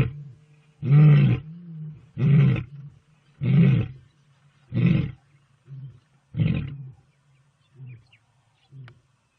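Big cat roaring in a series of deep, grunting calls about a second apart, growing weaker toward the end.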